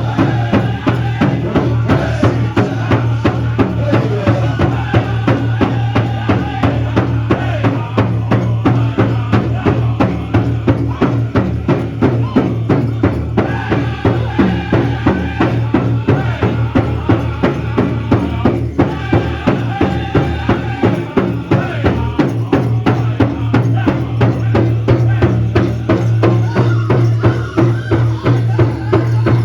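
Northern plains powwow drum group singing together in high, wavering voices over a steady, even beat struck on a shared big drum.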